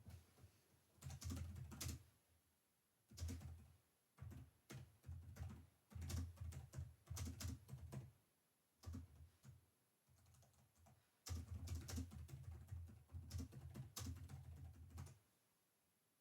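Computer keyboard typing in several bursts of rapid keystrokes broken by short pauses, with the longest unbroken run in the last few seconds.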